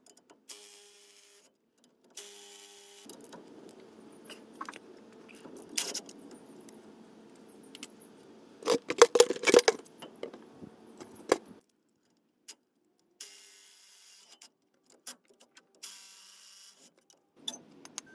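A Makita cordless impact driver runs twice, briefly, near the start as it loosens the brake caliper bolts. Metal clicks and a cluster of loud clanks about halfway through follow as the caliper and bolts are handled and the caliper is pulled off the rotor.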